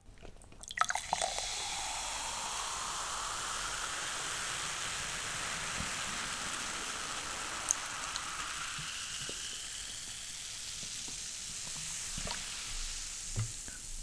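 Coca-Cola poured from a plastic bottle into a glass mug, the pour's note rising as the mug fills, over a steady fizzing hiss of carbonation and foam. A couple of light taps near the end.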